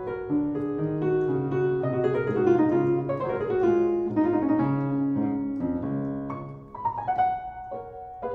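Background piano music: a slow melody over held chords, turning to shorter, separate struck notes near the end.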